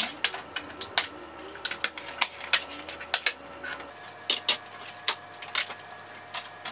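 Irregular clinks and knocks of kitchen containers and dishes being picked up and set down on a countertop, several sharp taps a second in places.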